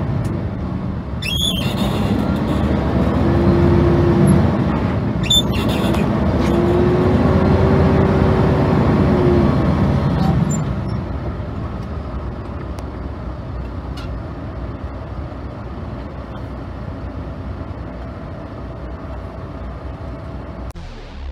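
International ProStar semi tractor's diesel engine heard from inside the cab while driving, pulling for about the first ten seconds with a faint rising whine, then easing off and running quieter. Two short clicks early on.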